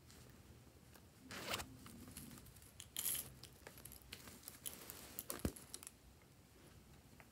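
Faint handling of a zippered plush pouch: a rustle about a second in, then a few seconds of light crinkling and clicking as loose plastic sequins are shaken out of it onto slime.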